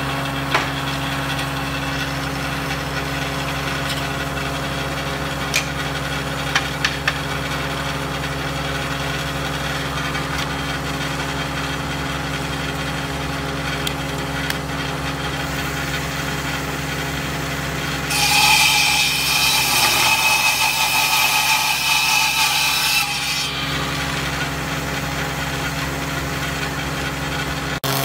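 Table saw running steadily with a low motor hum, with a few light knocks of wood early on. About two-thirds of the way in, the blade cuts through a wooden strip for about five seconds, a louder, noisy cut with a steady high whine, then drops back to the hum.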